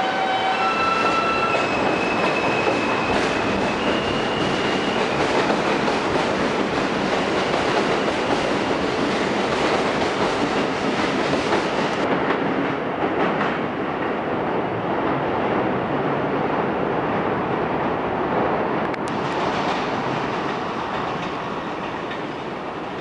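R160 subway train with Alstom propulsion pulling out of the station: its traction motors give a few stepped, rising tones in the first seconds over the loud rolling noise of the wheels on the rails. The hiss of the passing cars cuts off about twelve seconds in as the last car clears, leaving a slowly fading rumble.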